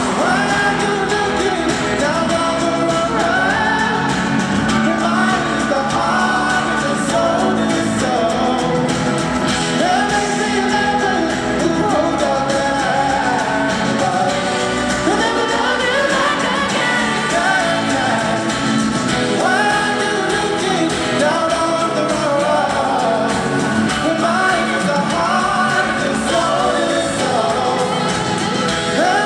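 Live pop band playing with singing over it, the vocal lines rising and falling in long melodic phrases.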